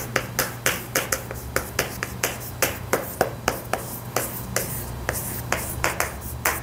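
Chalk writing on a chalkboard: a steady run of sharp taps and short scratches as the strokes are drawn, about two to three taps a second.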